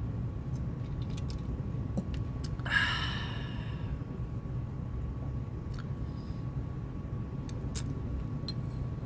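A man lets out a short voiced exhale, an 'ahh', about three seconds in, fading over about a second, just after swallowing a drink of alcohol. A steady low hum runs under it, and a few faint clicks follow.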